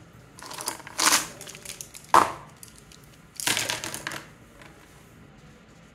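Plastic brush pens being gathered up and lifted off a paper sheet: a few short clattering, rustling bursts and one sharp click about two seconds in.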